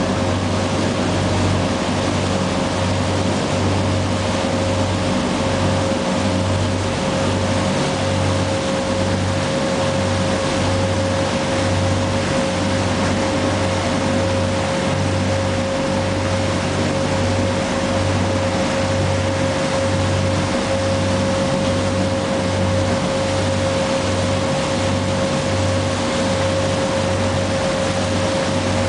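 Bateau Mouche tour boat's engine running steadily under way: a low pulsing throb and a steady whine, over the rush of the churning propeller wake.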